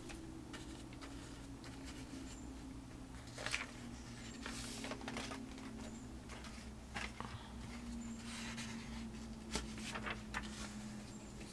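Faint scuffs and brushing sounds of a stiff, dry paintbrush being worked in craft paint on a palette and a paper page being handled, a few soft rustles spread through, over a low steady hum.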